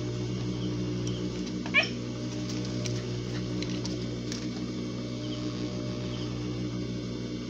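Steady electric hum of an industrial sewing machine's motor running while the needle is not stitching. About two seconds in comes one brief, sharply rising high squeak, the loudest sound.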